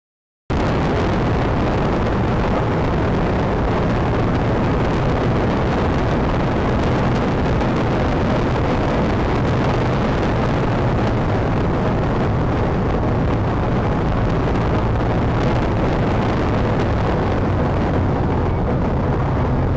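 BMW R1200RS boxer-twin engine running at a steady pace, mixed with wind and road rush on the onboard microphone. The sound cuts in abruptly about half a second in and stays even throughout.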